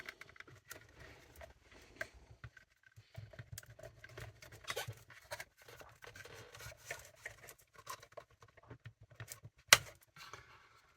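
Small clicks and scratches of hands working a wiring connector loose from a circuit board inside a Roberts Rambler BT radio, with one sharp, louder click a little under ten seconds in as it comes free.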